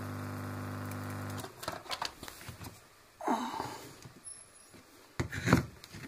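Washing-machine drain pump motor running with a steady hum, cut off about a second and a half in. After cleaning inside, it now starts on every switch-on instead of sticking. Handling clicks and knocks follow as the pump is picked up.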